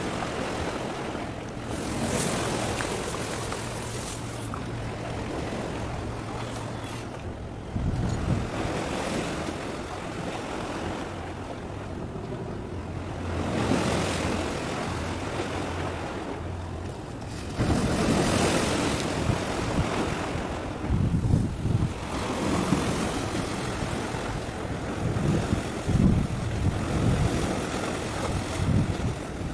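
Sea waves washing in surges every few seconds, with wind gusting on the microphone in the second half.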